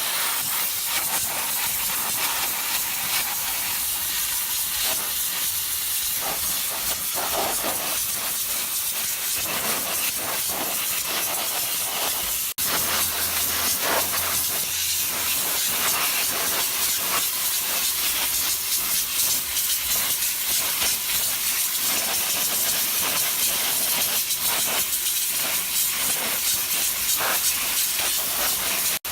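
Steady hiss of a 350-bar high-pressure washer jet fired through a sandblasting nozzle, stripping a metal surface. It breaks off for an instant about twelve seconds in, then carries on.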